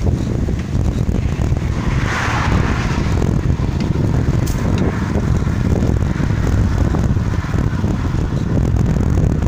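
Wind buffeting the microphone of a moving bicycle, over a steady low rumble of tyres on a rough track; a hiss swells briefly about two seconds in.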